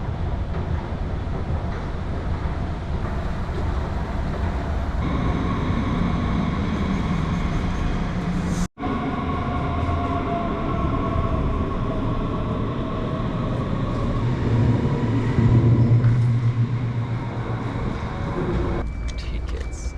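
Train running, a steady rumble with a whine that slides up and down in pitch; the sound cuts out for an instant about nine seconds in.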